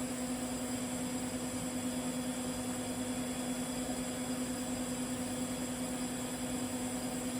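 TIG welding arc and welding machine running steadily: a constant hum with an even hiss over it.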